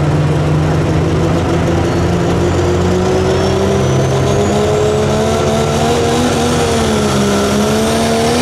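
Dodge Ram pro stock diesel pulling truck's engine held at full throttle under load, its pitch climbing slowly with a brief dip near the end. A turbocharger whistle rises steadily over it.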